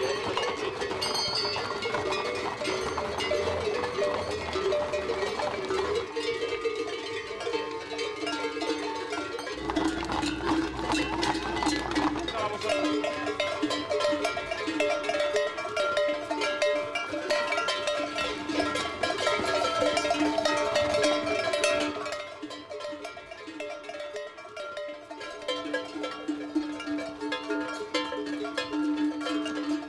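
Bells on a herd of mares and foals clanking and ringing continuously as the herd is driven along. The sound gets quieter about two-thirds of the way through.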